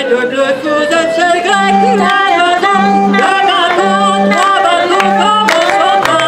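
A woman singing a French chanson to a hand-cranked barrel organ (orgue de barbarie) built by Sébastien Schuetz. The organ holds steady chords, with a low bass note sounding about once a second under the wavering voice.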